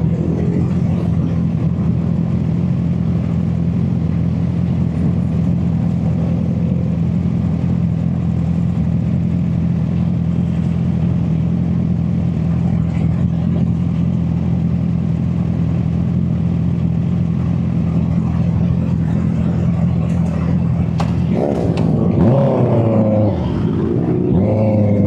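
Honda CB650R's inline-four engine running at a steady note while riding, heard from a mic in the rider's back pocket. About 21 seconds in the engine note changes, rising and falling with the throttle.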